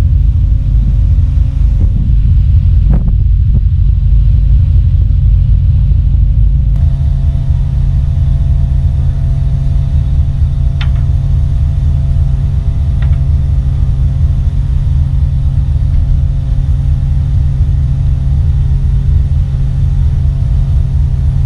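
Ferry's engines running in a steady low rumble with wind on the microphone. From about seven seconds in, a steady machinery hum with several held tones sits over the rumble.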